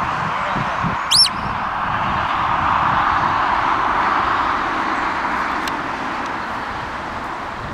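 Steady outdoor rushing noise, like distant road traffic. About a second in comes one short, sharp whistle that rises and falls in pitch.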